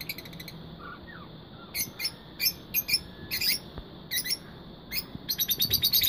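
Lutino rosy-faced lovebirds calling with shrill, high-pitched chirps: a short trill at the start, separate single calls through the middle, then a fast run of rapid chattering chirps near the end.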